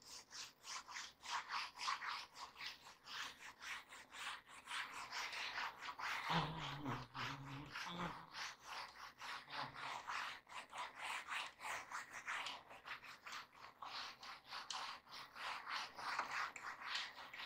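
Felt whiteboard eraser scrubbed quickly back and forth over a whiteboard, a long run of short, faint rubbing strokes as marker writing is wiped off. A brief low hum comes in about six seconds in.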